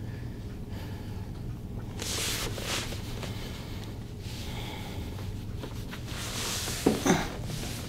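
A man breathing audibly through a face mask during a pause, with two short throat sounds close together near the end, over a low steady room hum.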